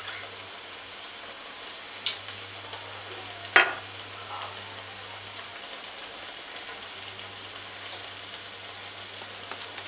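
Hot oil in a stainless steel kadai sizzling steadily around a little test batter, with a few sharp pops, the loudest about three and a half seconds in. The oil is hot enough for deep-frying vadai.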